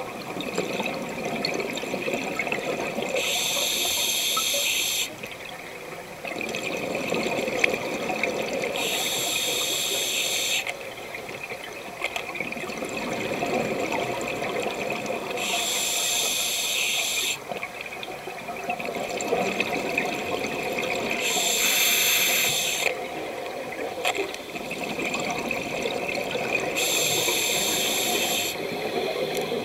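Scuba diver breathing through a regulator underwater: a hiss about every five to six seconds, five times, with the bubbling of exhaled air between the hisses.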